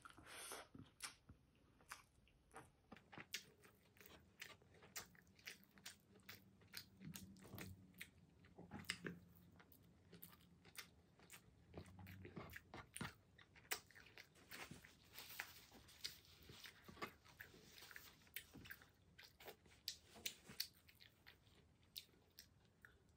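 A person chewing a mouthful of rice: a quick, irregular run of small wet mouth clicks and smacks.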